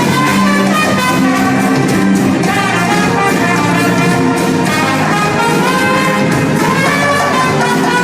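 A Latin brass band playing an instrumental, with trumpets and other brass carrying the melody in held notes over the band.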